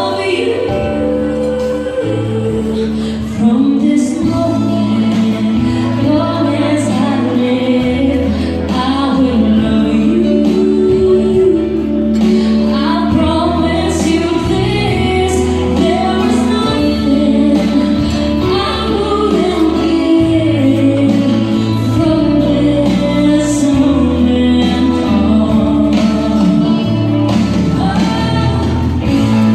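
A song with a singing voice over a bass line whose notes change every second or two.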